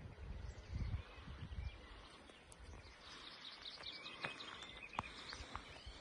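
Small birds chirping and calling, thickest from about halfway on, with a few sharp clicks. Footsteps on a dirt road thud in the first two seconds.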